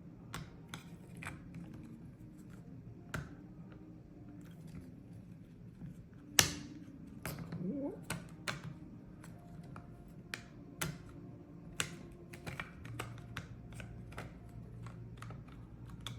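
Plastic parts of an HTC Vive Tracker 3.0 being handled and pressed together: scattered light clicks and taps, with one sharp, louder snap about six seconds in.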